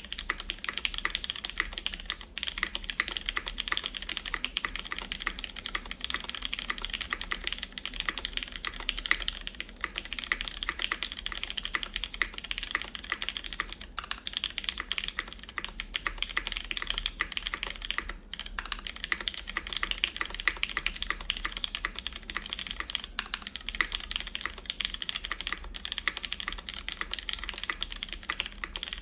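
Steady fast typing on a top-mounted CannonKeys Blaine v2 SE mechanical keyboard with lubed Cherry MX Brown tactile switches, GMK keycaps and a full aluminum plate. Continuous keystroke clacks, with a few brief pauses.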